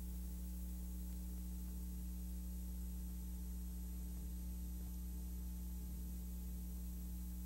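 Steady electrical mains hum with an even hiss underneath and no other sound: the noise floor of a film shot without sound.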